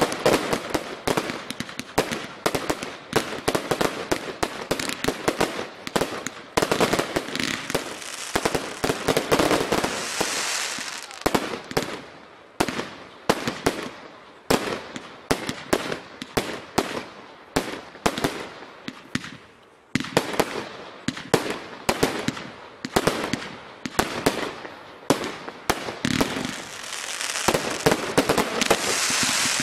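Consumer firework cakes firing in rapid succession: a dense run of sharp launch thumps, bangs and pops, with crackling and hissing that swells around ten seconds in and again near the end.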